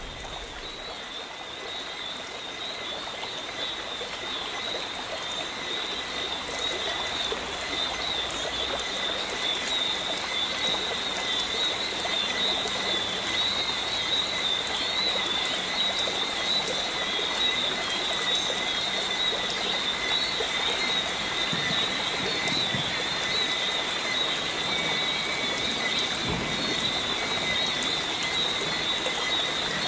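Steady outdoor animal chorus: a continuous high, wavering trill with a fainter lower steady tone, over an even hiss. It grows slowly louder over the first several seconds, then holds.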